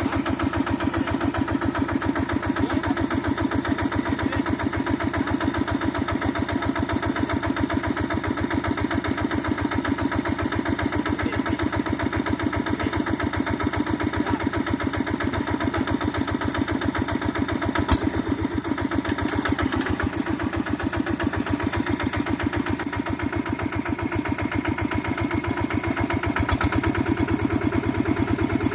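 Quick G1000 hand tractor's single-cylinder diesel engine running steadily with a fast, even chugging beat while it works through scrub. There is one sharp knock about 18 seconds in, and the engine gets a little louder near the end.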